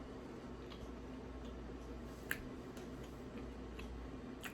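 Faint chewing of a crunchy iced sugar cookie: a few soft, scattered crunches and clicks, the clearest about two seconds in, over a low steady room hum.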